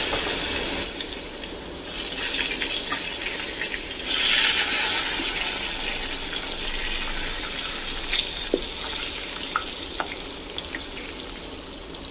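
Eggplant halves frying in hot mustard oil in an aluminium kadai, a steady sizzle. The sizzle flares up again about four seconds in as more pieces go into the oil, then slowly dies down, with a few pops and crackles near the end.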